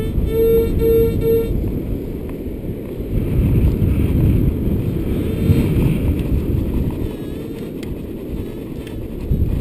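Strong wind buffeting the microphone throughout. In the first second and a half a Minelab Sovereign GT metal detector gives three short, even beeps, its audio signal for a metal target under the coil.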